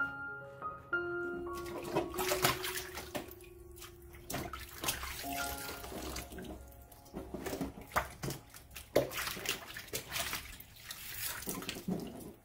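Light melodic background music, then from about a second and a half in, water splashing and sloshing as salted napa cabbage halves are rinsed by hand in a basin of water.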